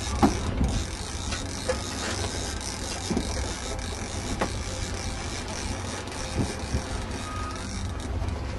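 Steady rumble and rushing noise of a sailing catamaran under way, with scattered short knocks and clicks, the sharpest about a quarter second in.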